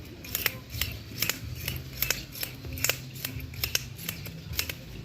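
Irregular run of short, sharp metallic clicks and snips, about three a second, from hand tools and the metal frame of an umbrella being repaired.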